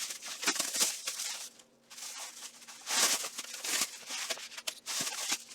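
Rustling and scattered light clicks and knocks from handling a piece of steel armor, a brigandine-style body piece, with two longer bursts of rustling, one at the start and one about three seconds in.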